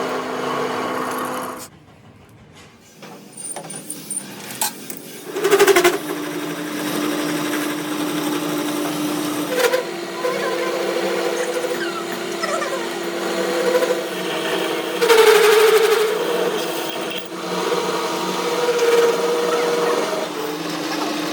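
Metal lathe running with a steady motor hum, dropping away briefly about two seconds in, with short louder bursts of cutting noise about six and fifteen seconds in.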